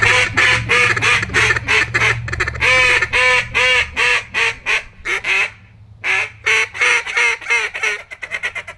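Hand-blown waterfowl calls, two callers at once, sounding a rapid run of short quacking and honking notes with a brief pause a little past the middle.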